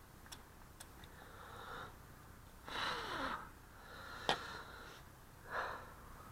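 A few short sniffs and breaths close to the microphone, with a single sharp click about four seconds in.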